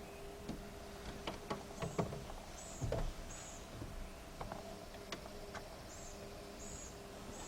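Scattered light clicks and knocks with one heavier thump about three seconds in, over a steady low hum. A short high chirp repeats five times, in two runs spaced about 0.7 s apart.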